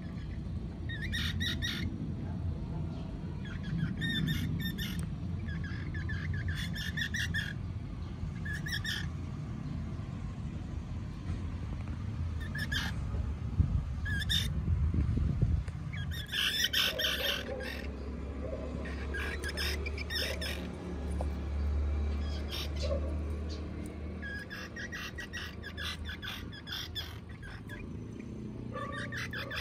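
Baby squirrels chirping: short bursts of rapid, bird-like chirps repeated every few seconds, over a low rumble that fades out about halfway through.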